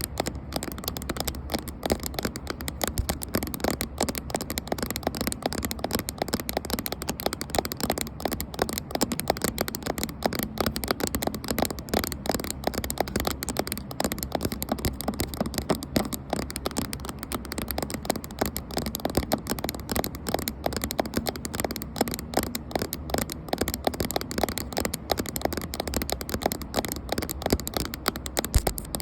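Fast, continuous tapping on a camera close to the microphone: a dense run of light taps, many per second, with no break.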